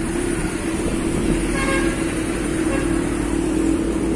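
Motorcycle engine running steadily on the move, with road and wind noise. A short vehicle horn toot sounds about a second and a half in.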